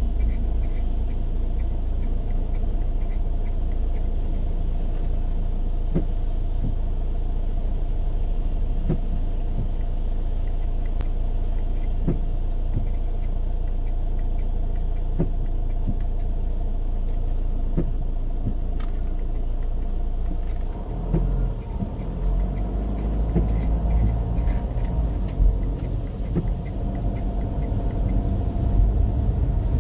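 Car cabin noise: the steady low rumble of a car's engine and tyres on the road, turning rougher and more uneven about two-thirds of the way through.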